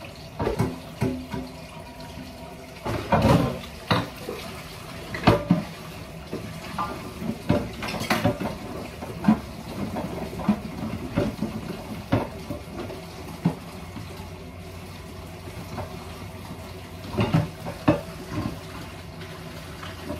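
Kitchen tap running into a sink while a pan is rinsed, with scattered knocks and clatters of the pan.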